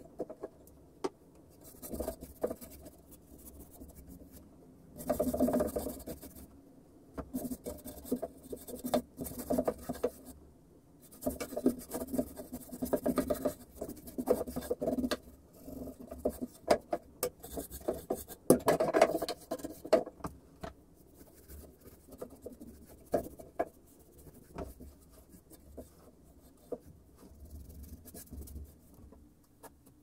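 Paintbrush bristles scrubbing over wooden boards in irregular bursts of strokes, with scattered light clicks and taps between them.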